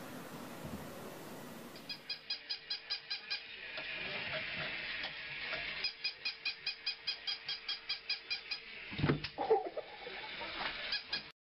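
An animal's rapid runs of short, high-pitched calls, about eight a second, in two runs, followed near the end by a thump and a short lower cry.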